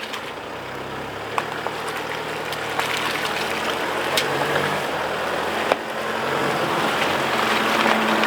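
4WD vehicle's engine working under load as it climbs a rough section of track, growing louder, with a few sharp knocks along the way.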